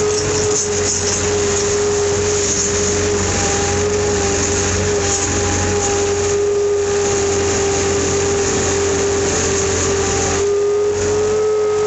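Tractor engine running steadily with a constant high whine over its low drone.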